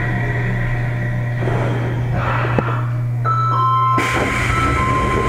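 Sendai Subway Namboku Line 1000 series car slowing as it runs into a station. A steady low running hum is joined about three seconds in by steady high whining tones from its Mitsubishi IGBT-VVVF traction equipment.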